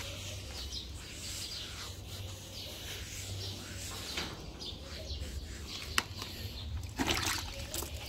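Small birds chirping over a steady low rumble, with a sharp click about six seconds in and then water sloshing in a bucket as a hand dips into it near the end.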